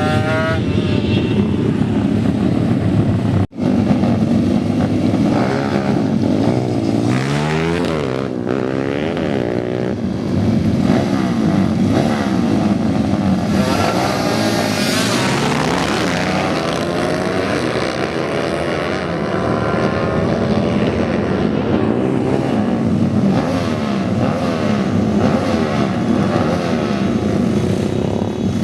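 Several modified two-stroke motorcycle engines revving and running hard, their pitches overlapping, climbing and falling as they pull through the gears. There is a brief dropout about three and a half seconds in.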